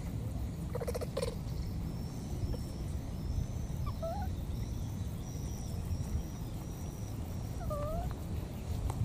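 Baby monkey giving short, thin cries: a quick stuttering call about a second in, then single curved cries about four seconds in and near the end, over a steady low rumble. A run of faint high peeps sounds in between.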